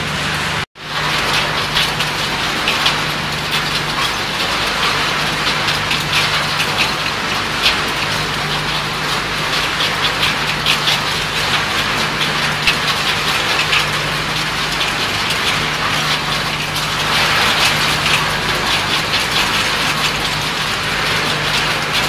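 Scrap metal recycling line machinery running with a steady low hum, over a constant irregular clatter of small shredded metal pieces falling onto a steel discharge chute.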